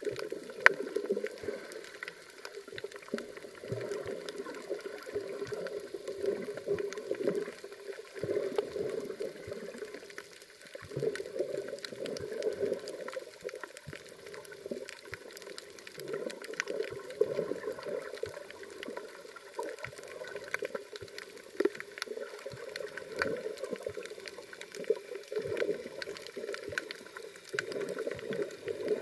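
Underwater sound heard through a camera's waterproof housing while snorkelling over a coral reef: a muffled rushing that swells and fades every couple of seconds, with scattered faint clicks and crackles throughout.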